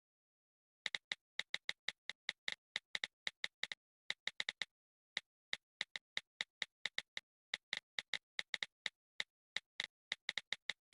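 Keyboard tap clicks from typing on a phone or device keyboard: a run of short identical clicks at an uneven pace of a few per second, starting about a second in.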